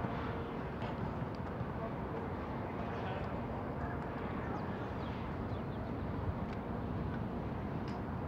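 Outdoor football training ambience: a steady low rumble with distant players' voices and a few faint, sharp thuds of footballs being kicked.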